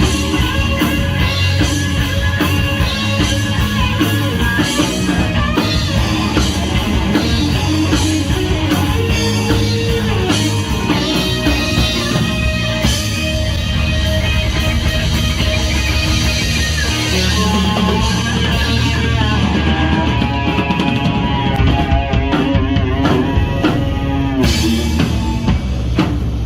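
Live rock band playing, with drum kit and guitar.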